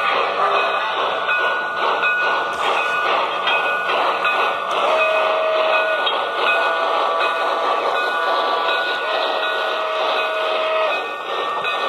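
Model steam locomotive's onboard sound running: steady chugging exhaust, with the whistle sounding about halfway in, briefly again just after, and once more for longer near the end.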